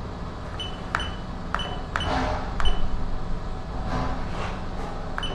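Several button presses on an electronic control panel, each a sharp click with a short high beep, spaced unevenly about half a second to a second apart, over a steady low hum.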